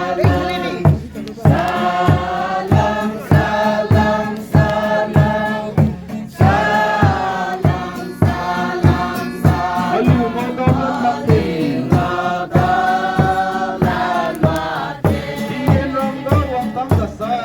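A group singing a song together over a steady low beat of about two thumps a second.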